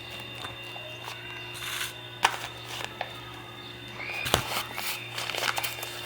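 Kitchen handling sounds as wheat flour is scooped and poured: irregular knocks and taps of a glass and container, with short rustling scrapes, the sharpest knocks about two seconds in and again near four seconds, over a steady electrical hum.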